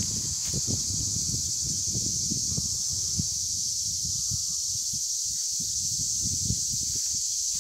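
Steady shrill buzz of a cicada chorus, with wind gusting on the microphone.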